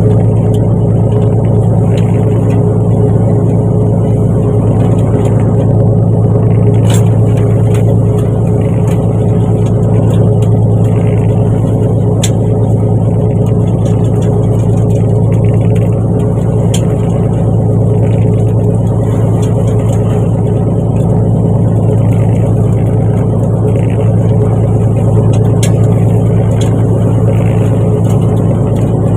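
Fishing boat's engine running steadily with a low drone, with a few brief clicks over it.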